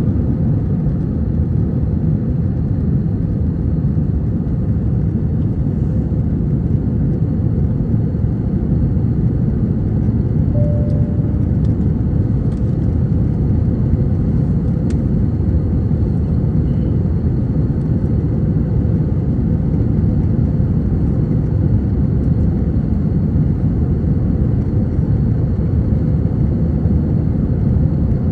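Steady cabin noise of an Airbus A321-231 in its climb, heard from inside the cabin: its IAE V2500 turbofan engines at climb power and the rush of air past the fuselage. It is an even, low-pitched drone with no breaks.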